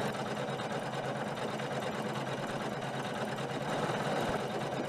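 Janome Memory Craft 500E computerized embroidery machine running steadily, its needle stitching at speed in a fast, even rhythm as it sews out a design.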